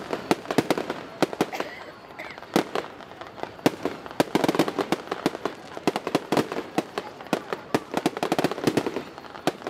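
Aerial fireworks going off in a rapid, irregular string of sharp cracks and bangs, several a second, thickest about halfway through.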